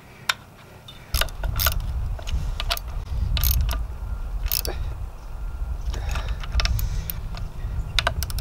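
Ratchet wrench turning the lower-unit bolts above the propeller of a 1981 Evinrude 7.5 HP outboard: scattered sharp metal clicks and clinks. A low rumble sets in about a second in.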